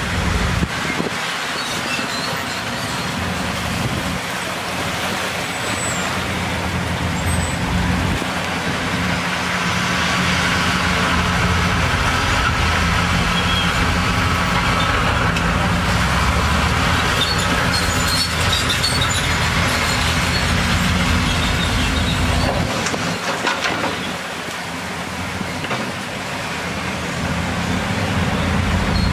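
Heavy diesel earthmoving machinery, bulldozer or dump truck engines, running under load. The sound grows louder through the middle and eases off for a few seconds near the end before building again.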